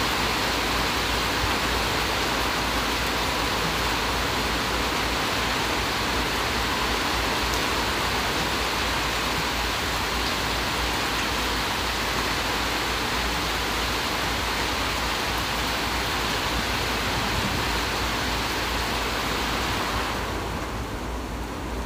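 Heavy rain pouring during a thunderstorm, a steady dense hiss with no let-up. Near the end it softens a little as its higher part fades.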